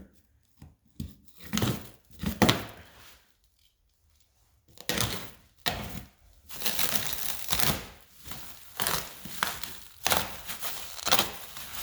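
Plastic shrink wrap being ripped and crumpled as it is pulled off a wooden sewing machine cabinet: irregular crinkling and tearing, with a short pause a few seconds in.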